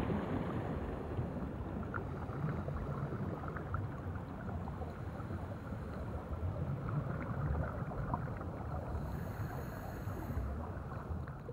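Steady watery ambience with faint scattered crackles.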